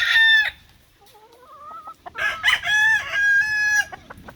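Roosters crowing: the tail of one crow ends about half a second in, a fainter rising call follows, then a second full crow of nearly two seconds, holding one pitch and dropping at its end.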